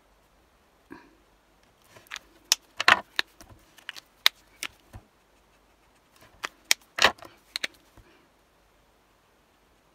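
Sharp clicks and taps of alcohol markers being handled: caps pulled off and snapped back on, and pens set down on the desk. The sounds come in two clusters, a few seconds apart.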